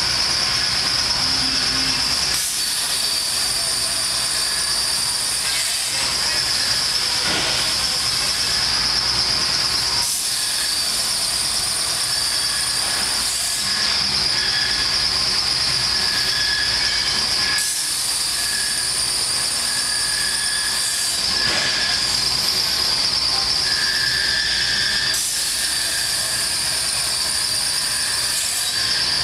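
CNC plasma torch cutting slots in 4-inch square steel tube: a steady, loud, high-pitched hiss of the plasma arc with a thin whistle over it. Its tone shifts every three to four seconds.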